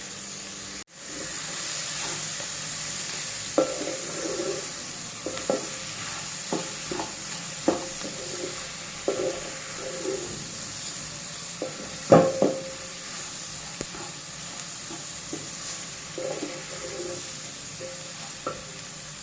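Onions sizzling steadily as they fry in a pot with boiled tripe, while a spoon stirs them and knocks against the pot now and then, loudest about twelve seconds in.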